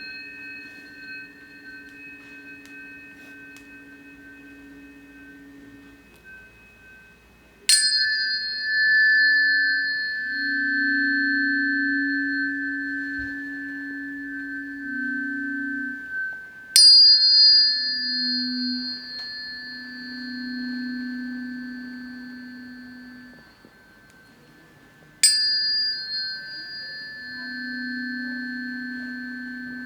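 Tuning forks struck three times, about every eight or nine seconds. Each strike rings on in several steady, pure high tones that slowly fade, with lower steady tones coming and going beneath.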